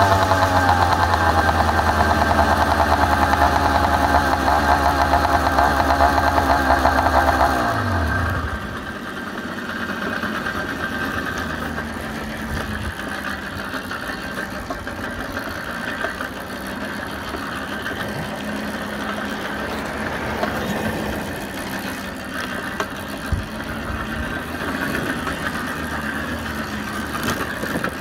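Unmuffled two-stroke motorized-bicycle engine running under way, then dropping in pitch and cutting out about eight seconds in as it runs out of fuel. After that there is only wind and road rush as the bike coasts.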